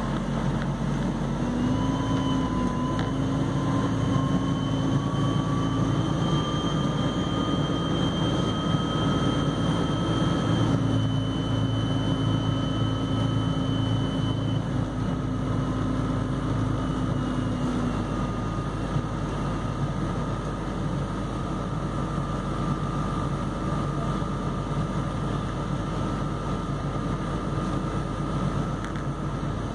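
MAN Lion's City Hybrid bus under way, heard from inside: steady rumble of road and drivetrain noise, with a whine from the electric drive. The whine rises in pitch over the first several seconds as the bus gathers speed, then holds steady.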